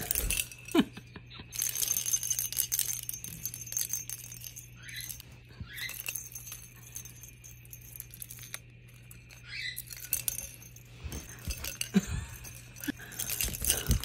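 Hollow plastic ball toy jingling and rattling in quick clusters of small clinks as a sun conure grabs, rolls and bites it. The clinking comes at the start, eases off in the middle, where a few short rising chirps come from the conure, and picks up again near the end.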